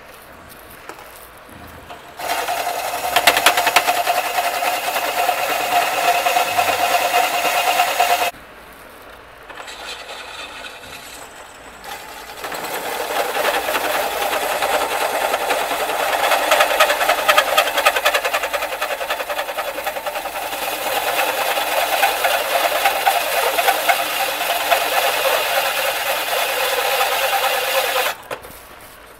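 A drill press drives a hole cutter into thick-walled steel tubing, lubricated with cutting oil, making a steady grinding cut. It cuts from about two seconds in to about eight seconds, with a steady tone through that first stretch. After a pause of about four seconds it cuts again until shortly before the end.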